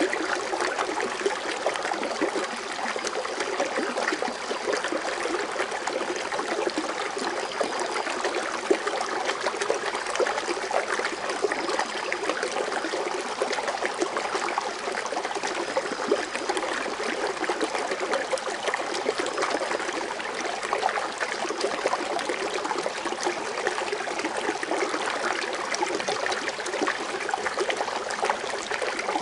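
Foaming water fountain splashing and trickling steadily into its basin, an even, unbroken water sound.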